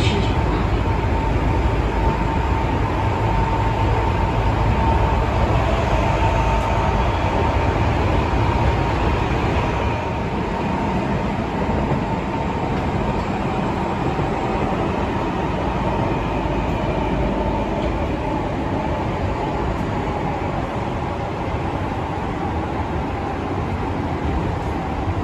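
Tokyo Metro 15000 series subway train running at speed, heard from inside the passenger car: a continuous heavy rumble of wheels on rails with a steady whine. The whine eases slightly lower in pitch near the end, and the whole sound drops a little in level about ten seconds in.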